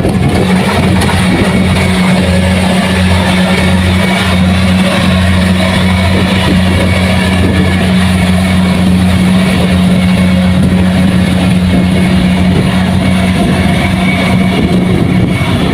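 Kubota rice combine harvester's diesel engine running loud and steady at a constant speed, a low even hum that does not rise or fall.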